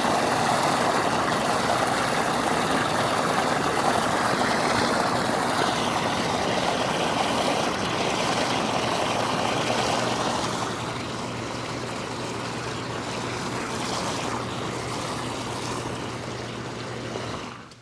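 Hot tub jets churning the water: a steady rushing, bubbling wash of water and air with a low steady hum beneath. It eases slightly about ten seconds in.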